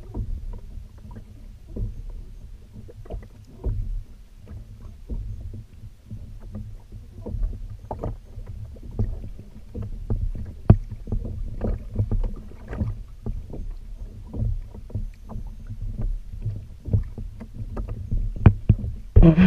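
Small sea chop slapping and lapping irregularly against the hull of an anchored plastic fishing kayak, over a steady low rumble, with one sharper knock about halfway through.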